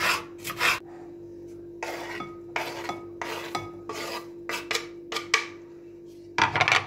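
Kitchen knife cutting a green bell pepper on a wooden cutting board, then scraping the chopped pieces off the board into a glass bowl in a run of short rasping strokes, with a louder clatter near the end.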